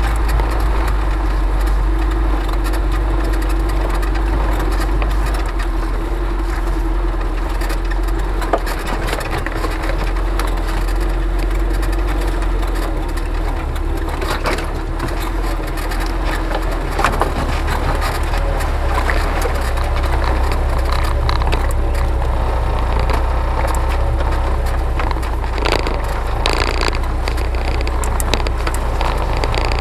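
UAZ 4x4 engine running steadily at low speed while the vehicle pushes through overgrown forest track, with brush and twigs crackling and snapping under and against it. Near the end, leafy branches scrape along the body.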